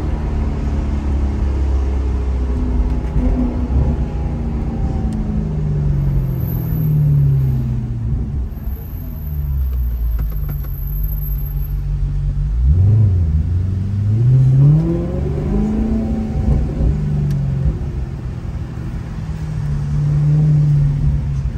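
Maserati GranTurismo's V8 engine heard from inside the cabin at low speed. The engine note falls away as the car slows, then about 13 seconds in it dips and climbs sharply as the car accelerates again, before settling to a steady note near the end.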